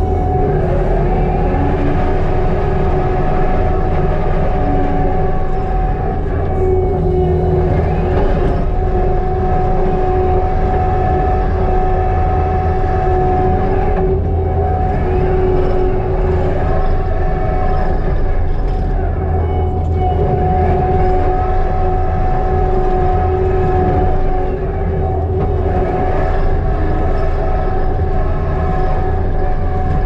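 Kubota SVL95-2s compact track loader's four-cylinder turbo-diesel running steadily under load, heard from the cab, with a steady whining tone over the engine drone as the machine grades dirt.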